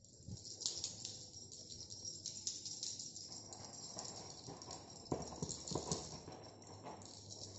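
A cat scrambling and climbing after a feather wand toy: irregular quick taps, scrapes and knocks, busiest about five to six seconds in.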